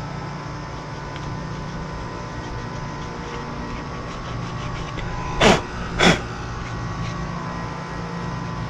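Steady mechanical hum with a faint constant whine. Two brief, sharp sweeping sounds come about five and a half and six seconds in.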